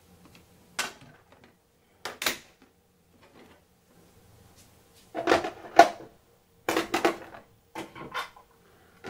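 Hard plastic tool cases being handled and set down in a steel toolchest drawer and on the workbench: scattered knocks and clatters, sparse at first and busier from about five seconds in.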